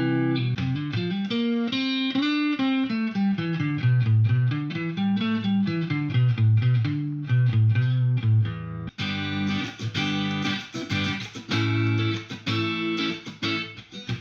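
Guitar music: a melodic line with bending notes, turning about nine seconds in to brighter, faster strummed chords.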